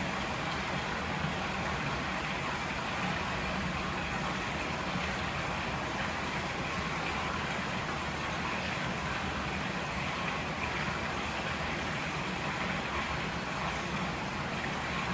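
Steady rushing of a river, an even, unbroken water noise with no changes.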